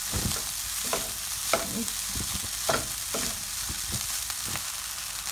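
Egg fried rice sizzling in a nonstick wok while two wooden spatulas toss and stir it. Irregular knocks and scrapes of the spatulas against the pan come over a steady high sizzle.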